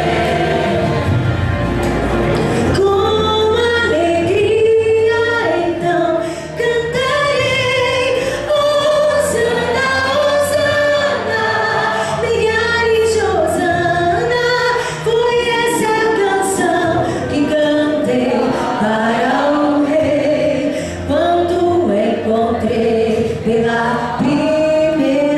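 A church choir singing a hymn with instrumental accompaniment.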